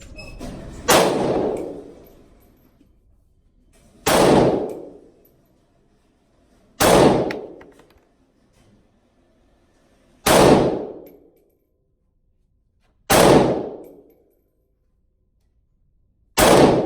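Palmetto State Armory GF3 AK-47 in 7.62x39 firing single aimed shots, six in all, about three seconds apart, each shot ringing off over about a second.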